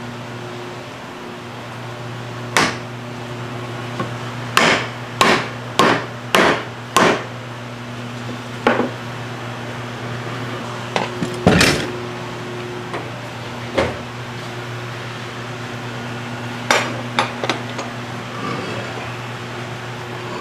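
Sharp metal knocks and clanks from setting up and clamping heavy steel vise jaws in a machinist's vise: a quick run of about five, the loudest a little past halfway, and a few more spaced out. A steady low hum runs underneath.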